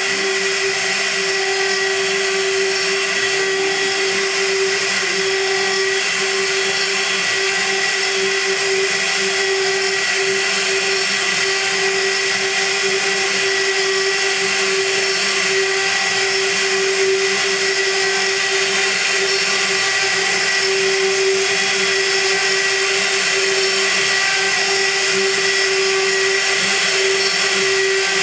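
High-frequency spindle of a CNC gantry milling machine cutting aluminium: a steady high whine with constant cutting noise and no breaks.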